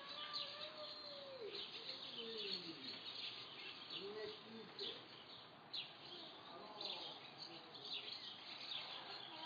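Birds chirping in quick, high repeated notes, with a few lower sliding sounds underneath and a light steady hiss.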